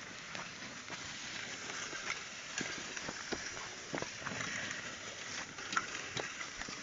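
Cattle pulling a plough through a field: scattered, irregular knocks and clicks of hooves, feet and plough over a steady hiss.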